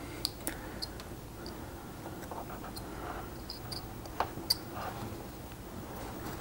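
Detail carving knife cutting into basswood: faint small clicks and short scrapes as the blade tip pries out chips between stop cuts, with two sharper clicks a little after four seconds in.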